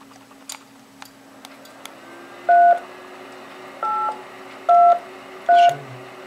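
Four short DTMF tone pairs keyed on a transceiver's hand-microphone keypad, starting about two and a half seconds in at uneven spacing. They send the digits 3, 8, 2, 3 of an Echolink node number, to make the repeater link to another node. A few faint clicks come before them, over a low steady hum.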